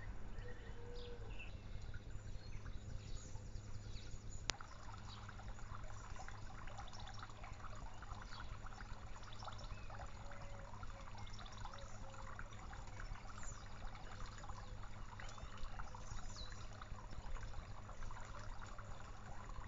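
Water trickling steadily into a garden pond, with a single sharp click about four and a half seconds in.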